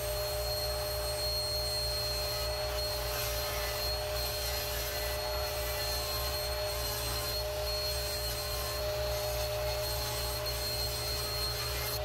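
Table saw and two-stage dust collector running together in a steady, unbroken drone with a constant hum while a long baseboard is ripped to width along the fence.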